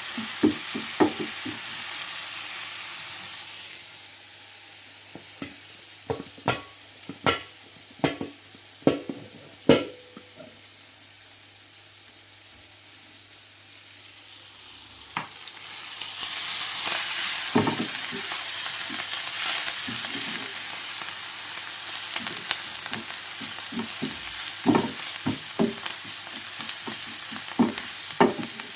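Food sizzling in a cooking pot while a spoon stirs and knocks against the pot. The sizzle drops away about four seconds in, leaving a run of sharp spoon clicks, and comes back strongly about halfway through.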